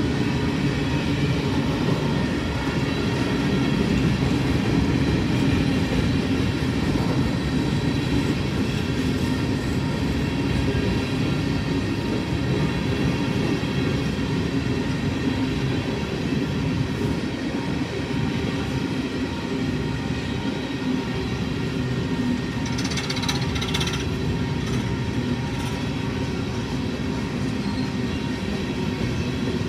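Coal hopper cars of a long, slow freight train rolling past on steel wheels: a steady rumble of wheels on rail with faint ringing tones above it, and a brief hiss about three-quarters of the way through.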